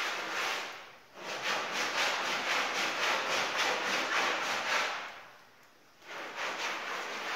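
A small hand scrub brush scrubbing a wet, soap-lathered rug in quick back-and-forth strokes, about five a second. The scrubbing pauses briefly about a second in, and again for about a second from five seconds in.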